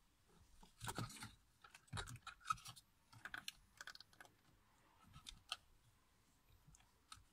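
Plastic multifunction button trim being handled and pressed onto a BMW E46 steering wheel: a run of light clicks, taps and scrapes, with sharper single clicks about two and a half and five and a half seconds in.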